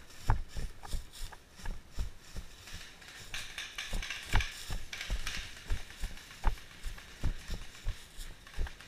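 Footsteps through dry fallen leaves, each step a dull thump with a crunch of leaves, coming irregularly. A longer stretch of leaf rustling comes about halfway through.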